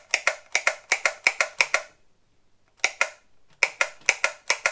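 Rapid, sharp plastic clicking, about five clicks a second in runs broken by two short pauses: the trigger switch of an Einhell TC-MA 1300 wall chaser being worked repeatedly while the motor stays off.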